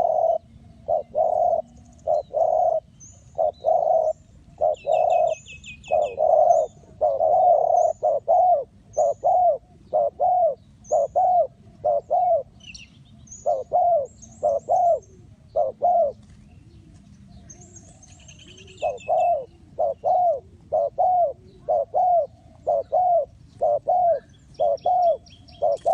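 Spotted dove cooing in a long series of short, arched coos, about one and a half a second, pausing briefly twice. Faint high chirps of small birds come through between them.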